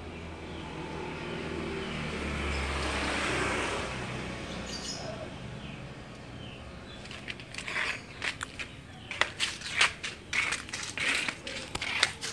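A broad rushing noise swells over the first few seconds and fades, with faint small-bird chirps. From about seven seconds in comes a quick run of footsteps and small knocks as someone walks.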